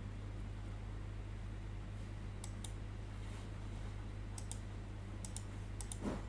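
Scattered light clicks from computer input, in small clusters, over a steady low electrical hum, with a short soft low thump near the end.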